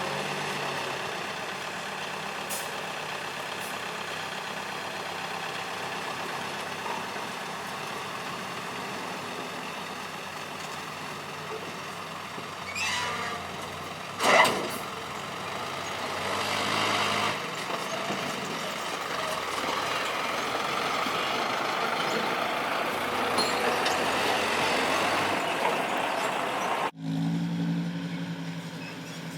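Heavy diesel machinery of an excavator and dump trucks running steadily. About fourteen seconds in a truck's air brakes let out a loud, sharp hiss, just after a smaller hiss. Near the end the sound breaks off and a lower engine hum takes over.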